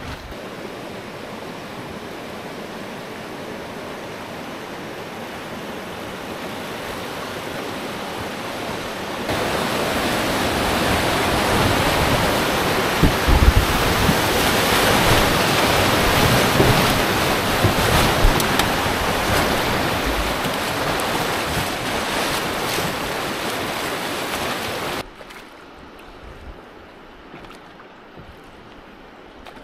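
Whitewater rapid rushing around a river raft, a steady rush of water that jumps much louder about a third of the way in, with a few low thumps at its loudest. Near the end it drops suddenly to the much quieter flow of calm river water.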